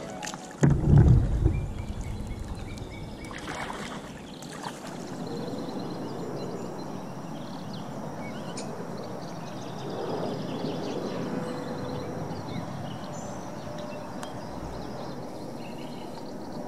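Kayak paddling on a calm lake: water splashing and dripping from the paddle and lapping against the hull, with a loud low thump about a second in, then a steady wash of water.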